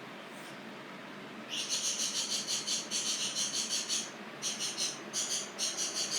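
Rapid, high-pitched chirping, about five chirps a second, starting about one and a half seconds in, breaking off briefly near four seconds, then resuming.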